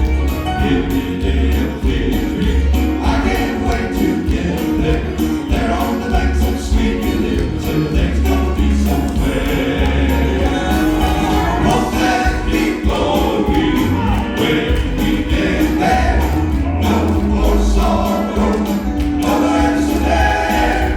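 Southern gospel quartet singing in close harmony over a backing band, with a heavy bass line and a steady beat of light high percussion.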